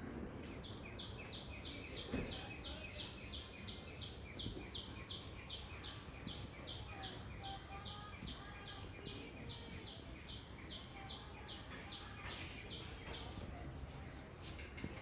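A bird calling a long, even series of short high notes, about three a second, over steady outdoor background noise; the calling stops about 13 seconds in.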